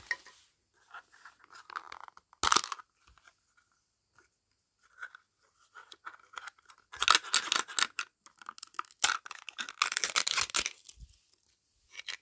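Thin plastic of a Mini Brands capsule being opened by hand, with crinkling and tearing sounds in several bursts. The loudest bursts come about two and a half seconds in and again in the second half, with small clicks and rustles between.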